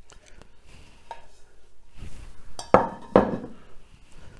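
Faint scraping of a spatula clearing mashed potato from an earthenware dish, then two sharp crockery clinks about half a second apart as the dish and utensils are knocked together and put down.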